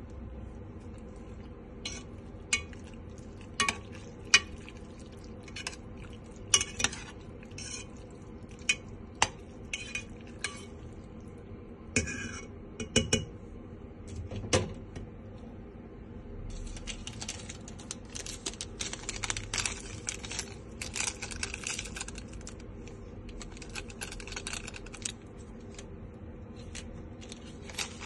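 A utensil knocking and clinking against an enamel pot as pasta is stirred together with a garlic and chili sauce, in sharp separate knocks for the first half. After about 16 seconds it turns into a denser run of softer scraping and rustling.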